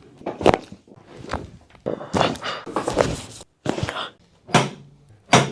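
Chiropractic adjustment: a series of sharp thunks and cracks, roughly one a second, as the chiropractor thrusts on the patient's spine and joints, with rustling between them.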